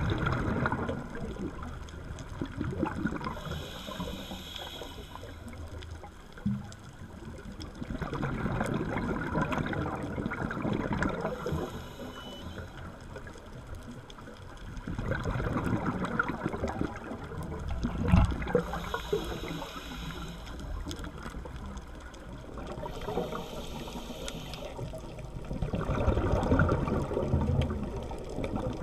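Scuba diver breathing through a regulator underwater: a short hissing inhale, then a long burst of bubbling exhaust, the cycle repeating about every seven or eight seconds.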